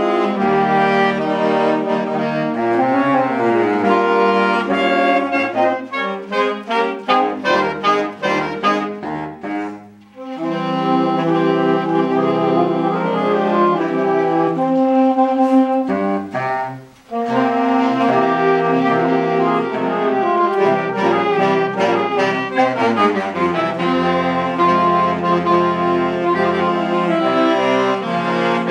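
Saxophone choir playing in ensemble: held chords alternate with passages of short, detached notes, with two brief breaks, about ten and seventeen seconds in.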